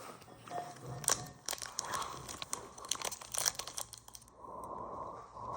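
Plastic packaging being handled and torn open, with irregular crinkling, crackling and tearing. A steadier hum comes in near the end.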